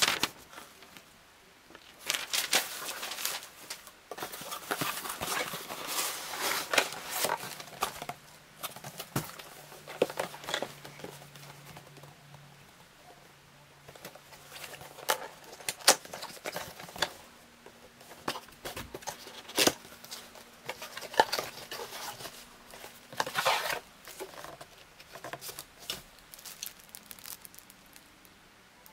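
Unboxing by hand: paper rustling, a cardboard box being handled and a plastic bag crinkling, with scattered light knocks in irregular clusters.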